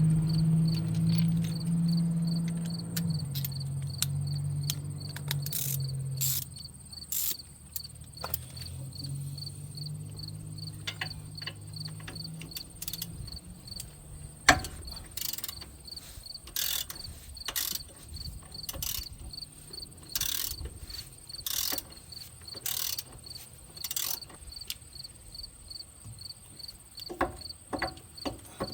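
Crickets chirping in a steady, even trill, with scattered sharp clicks and taps. A low hum fades away over the first dozen seconds.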